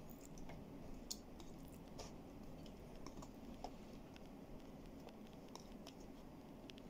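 Faint, irregular clicks and light scrapes of a plastic spoon against plastic food containers as chicken adobo is scooped out and onto rice.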